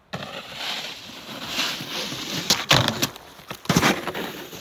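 Snowboards sliding over snow: a steady scraping hiss from the boards' edges and bases, with a few sharp knocks about two and a half and nearly four seconds in.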